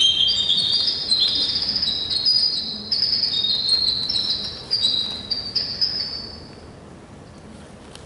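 Winter wren song played over a loudspeaker: one long, high, rapid run of trills and twittering notes that stops about seven seconds in.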